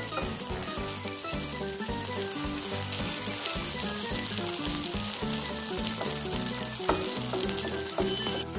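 Bread slices spread with a cream-and-vegetable paste sizzling steadily on a hot tawa, frying in the ghee that the cream releases, with a fine crackle throughout. Background music plays underneath.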